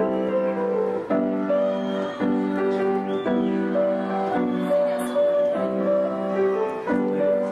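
Slow, gentle piano music, with a new chord about once a second and a simple melody above it.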